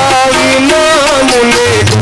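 Live Gujarati folk music: harmonium and electric Indian banjo playing a melody that bends and wavers in pitch, with percussion.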